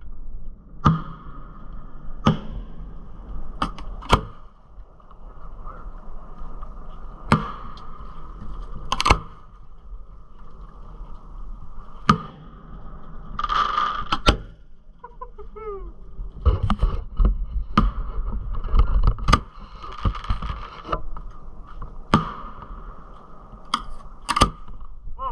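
Fireworks going off: more than a dozen sharp bangs of aerial shells at irregular intervals, with two stretches of hissing crackle and a falling whistle about midway.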